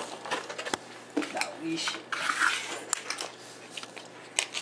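Clinks and knocks of kitchen items being moved around while someone rummages through food shelves, with a rustle of packaging about two seconds in.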